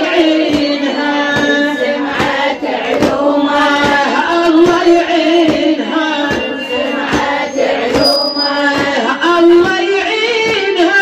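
A woman's voice chanting an Iraqi Shia mourning lament (latmiya), with a steady rhythm of sharp beats under it.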